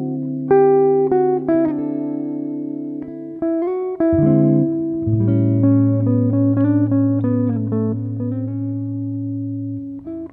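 Background music: plucked guitar notes ringing out one after another over long held low bass notes.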